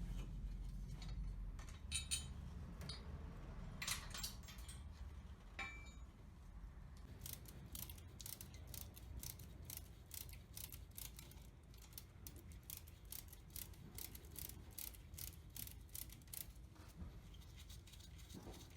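A metal hand tool clicking during engine work: a few scattered clicks, then a steady run of about three clicks a second for several seconds.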